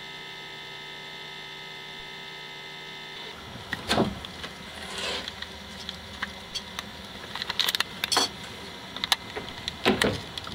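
Steady electrical hum with several fixed tones. About three seconds in it gives way to irregular clicks, knocks and rustles from a handheld camcorder being moved about outdoors.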